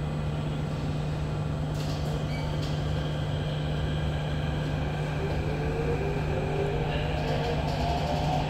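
Inside an SMRT CT251 metro train: a steady low hum and running noise. About five seconds in, a rising whine of several tones starts as the train's traction motors accelerate it.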